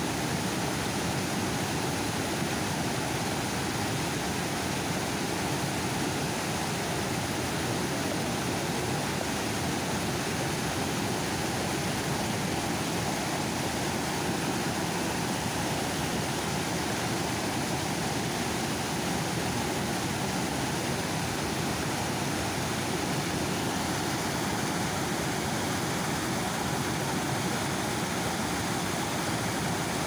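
Water spilling over a dam's overflow, a steady rushing of falling water.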